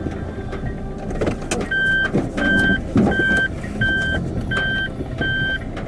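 Suzuki Hustler kei car's reverse-gear warning beeping at an even pace, about one beep every 0.7 s, starting about two seconds in. Under it is the low rumble of the car creeping on the dirt track, with scattered clicks from the tyres.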